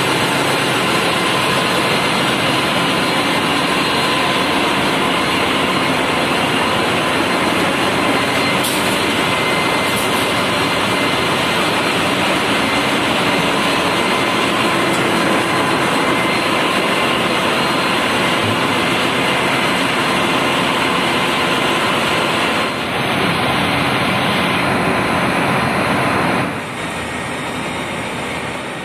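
Ship's engine-room machinery running: a loud, steady din with a few faint steady whines in it. It drops somewhat in level about 26 seconds in.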